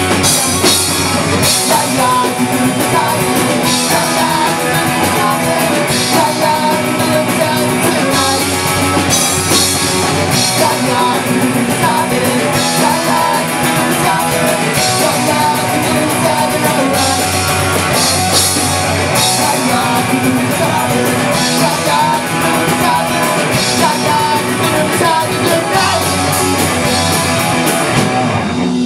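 Punk rock band playing live and loud: electric bass, guitar and drum kit with singing. The song cuts off near the end.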